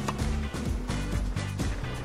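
Background music for an animated cartoon: a bass line moving in short steps over a steady beat.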